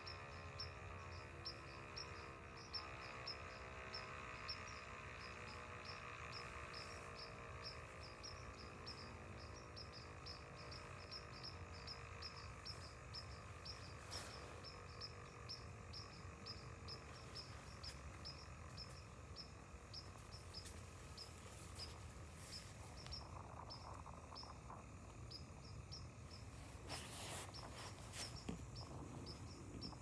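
Outdoor warning siren winding down after its test, several faint tones falling slowly in pitch and fading out over about the first twelve seconds. Insects chirp steadily, a high chirp about three times a second, and there is a short rush of noise near the end.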